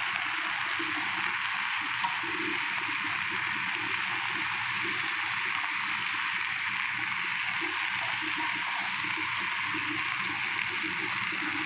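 Sweet potato leaves sizzling in hot oil in a wok, a steady frying hiss, while a spatula tosses them.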